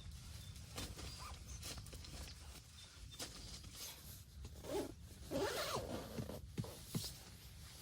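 A zipper being pulled in several short strokes, louder and more drawn out in the second half.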